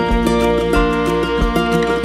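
Instrumental background music: sustained melodic notes over a bass line, changing notes every half second or so.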